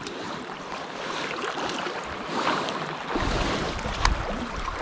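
Waves lapping on a rocky shore and wind, with wind buffeting the microphone in a low rumble from a little after three seconds in. A single sharp crack about four seconds in.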